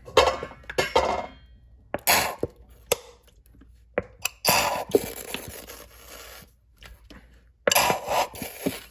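Sauce squeezed from a plastic flip-top bottle into a ceramic mug. A few sharp clicks and knocks of cap and mug come first, then longer spluttering squirts about halfway through and again near the end.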